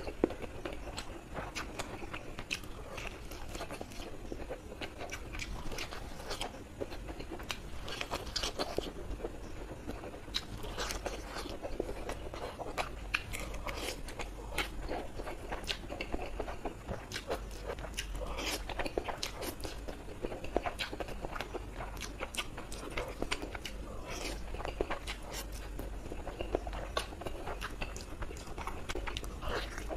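Close-miked eating sounds of a person chewing and slurping a mouthful of noodles, with many short wet clicks of the mouth.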